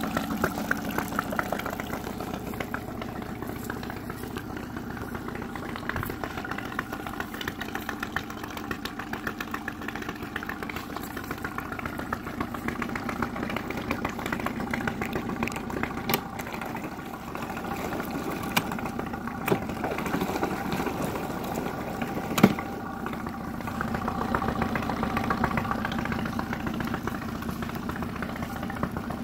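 2013 Honda 9.9 four-stroke outboard, a twin-cylinder engine, running steadily at idle with its lower unit in a test barrel of water. A few sharp clicks stand out over it, the loudest about 22 seconds in.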